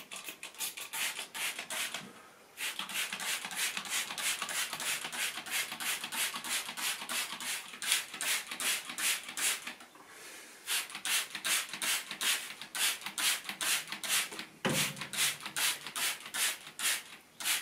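Hand trigger spray bottle being pumped again and again, sending mould remover onto a ceiling: a quick run of short hissing squirts, about three a second, with two short pauses, one about two seconds in and one about ten seconds in.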